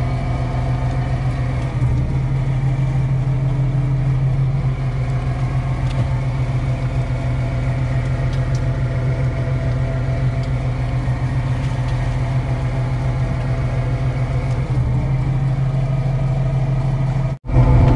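Fishing boat's engine running steadily, a constant low drone with a hum of tones above it. It cuts off abruptly near the end.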